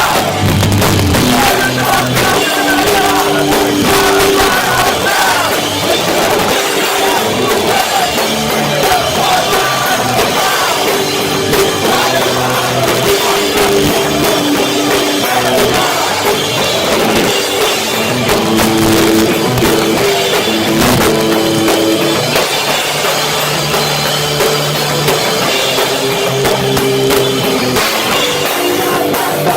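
A hardcore/metal band playing live, with loud distorted guitars, pounding drums and shouted vocals. The sound is harsh and distorted, as recorded on a cheap cell phone.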